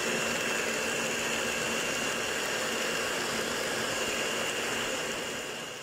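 Electric hand mixer running steadily at low speed, its two beaters whisking a runny egg, oil, orange juice and sugar mixture, with a constant motor whine. The sound fades out at the very end.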